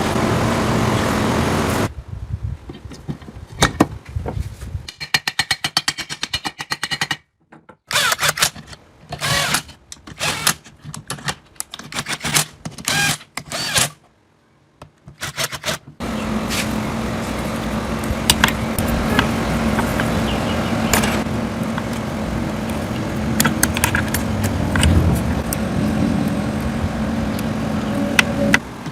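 A motor running steadily with a low hum, broken for about fourteen seconds by a choppy stretch of short sounds and clicks with silent gaps, then running steadily again.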